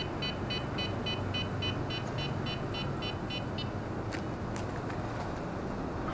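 Rapid electronic beeping from the WL Toys Q242G's handheld radio transmitter, about three and a half short beeps a second, stopping about three and a half seconds in; a couple of sharp clicks follow.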